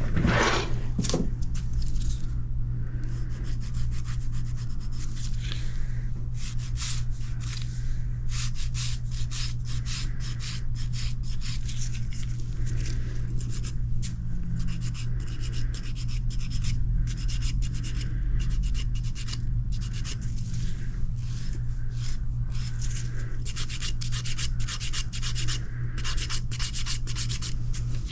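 A nail file sanding the surface of a rebuilt big toenail in rapid, short scraping strokes, over a steady low hum.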